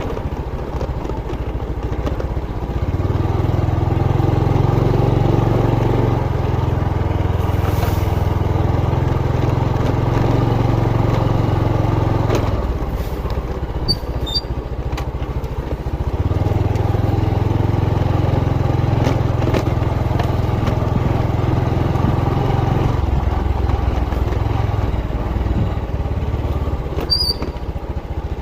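Motorcycle engine running on the move, a steady drone whose note dips and picks up again a couple of times.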